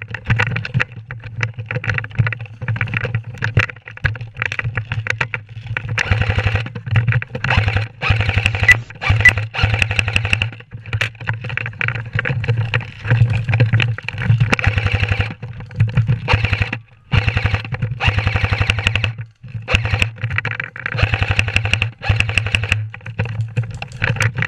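Airsoft electric gun firing long full-auto bursts: a rapid, even clatter of shots over a steady motor hum, breaking off briefly a few times.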